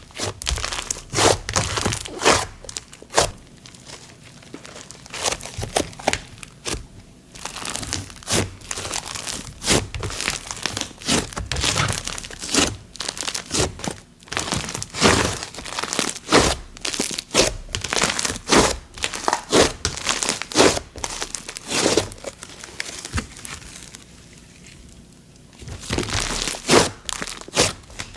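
Thick, sizzly snow butter slime being squished and stretched by hand, giving a dense run of crackling pops, with a short pause near the end.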